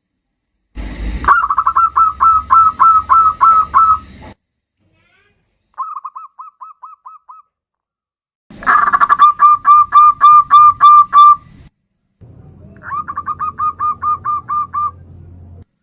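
Zebra dove (perkutut) song: four bouts of rapid, evenly repeated short cooing notes, each bout lasting about one to three seconds, with silent gaps between. The second bout is fainter and shorter than the others.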